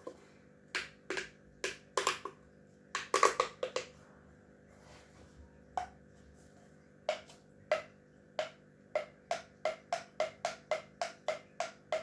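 A fidget toy clicking: a few scattered snaps and a quick cluster, then a steady run of about three clicks a second near the end.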